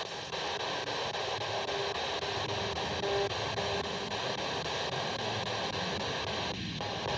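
Steady hiss of radio static from a ghost-hunting spirit box sweeping through stations, with faint snatches of tone and a brief break near the end.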